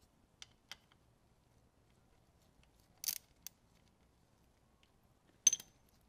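Scattered light metal clicks from a socket and extension being worked onto a motorcycle's oil drain plug, with a few sharper clicks about three seconds in. About five and a half seconds in comes the loudest sound, a sharp metallic clink with a brief high ring, as the steel extension bar is set down.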